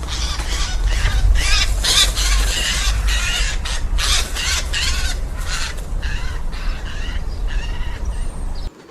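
Eurasian jay calling over and over with harsh, rasping screeches in close succession, over a low rumble of wind. The sound cuts off abruptly near the end.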